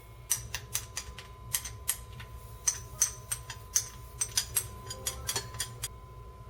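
A quick, irregular run of sharp clicks and light taps, about four a second, that stops about a second before the end.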